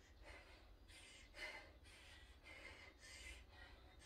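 Faint, quick breaths in and out, repeating about every half second to second: panting from exertion during a high-intensity workout.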